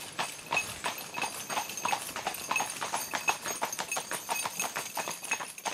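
Carriage horses' hooves clip-clopping at a steady pace, about four to five hoof strikes a second.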